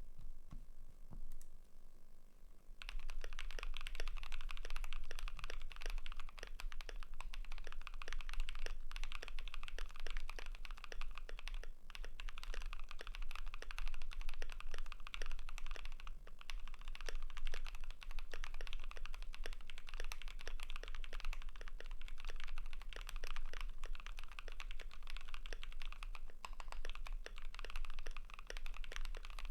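Fast, continuous typing on a Keychron Q3 mechanical keyboard with lubed KTT Strawberry linear switches, PBT keycaps and a steel plate: a steady stream of keystroke clacks. It starts with a few sparse presses in the first three seconds.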